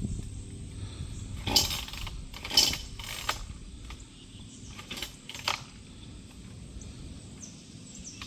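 Gas chainsaw idling low just after a cut, with about five sharp knocks and clicks over it, the loudest about a second and a half and two and a half seconds in.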